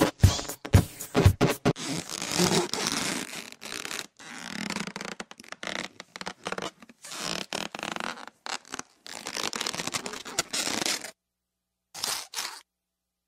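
Electronic soundtrack of sharp clicks giving way to raspy, scratchy noise swells. It cuts off about eleven seconds in, with one short burst a second later.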